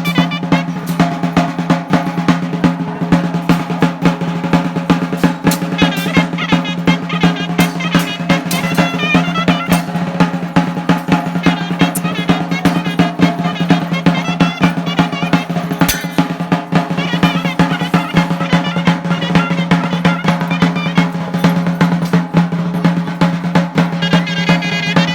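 Traditional chirimía music: a chirimía (double-reed pipe) playing a warbling melody over continuous rolling drumming on a snare-type drum.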